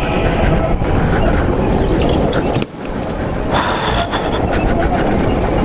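Electric go-kart being driven hard on an indoor track: steady running noise of the kart's tyres and motor, with a brief dip about two and a half seconds in.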